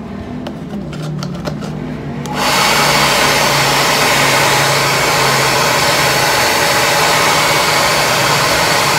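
JML handheld hair dryer switched on about two seconds in, then blowing steadily with its nozzle pushed into a large plastic water bottle, after a few light handling clicks.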